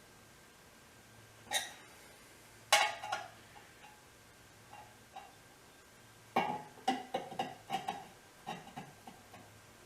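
Metal knocks and clinks from hand tools on the steel muffler: two single knocks, then an irregular run of quicker taps about six seconds in.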